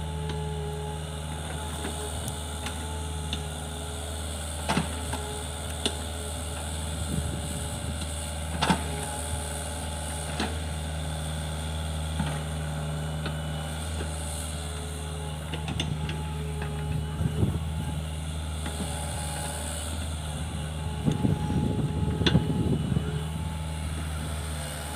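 Hitachi mini excavator's diesel engine running steadily as the machine digs and slews, with a few sharp metallic knocks along the way. It gets louder and rougher for a couple of seconds near the end.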